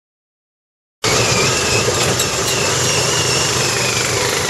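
Silence for about a second, then an off-road buggy's engine cuts in abruptly, running steadily as the buggy drives, heard from on board, with a faint whine that wavers up and down.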